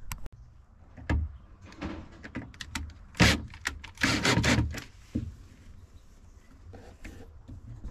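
Irregular clicks, knocks and scrapes of a boat speaker being handled and fitted into its mounting hole, loudest about three and four seconds in.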